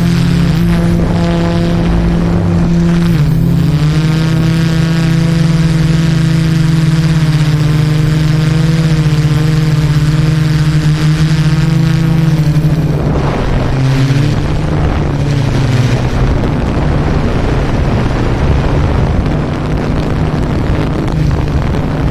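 Yuneec multirotor drone's electric motors and propellers humming steadily in a few close pitches. The pitch shifts about three seconds in and again around the middle as the rotor speeds change.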